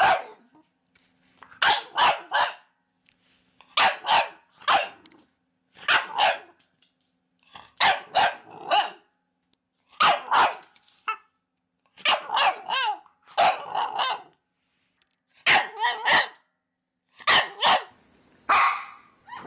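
Puppies barking in short clusters of two or three sharp barks, repeating about every two seconds with brief pauses between.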